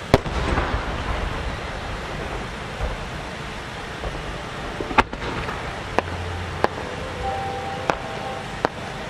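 Aerial firework shells bursting. A large 10-gō (12-inch) shell bursts with one loud boom that dies away over about a second. About five seconds in comes a series of five sharper bangs, roughly a second apart.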